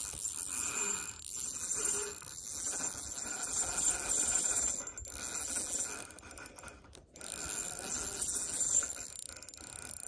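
Spinning reel being cranked, its gears rattling and clicking as a hooked trout is reeled in.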